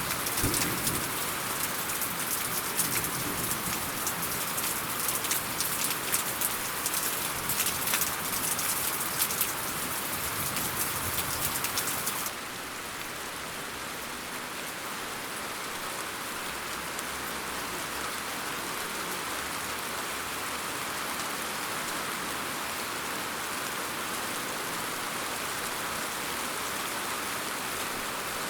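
Rain falling. For the first dozen seconds it is heavier, with many close drop hits. About twelve seconds in it switches suddenly to a softer, steady hiss.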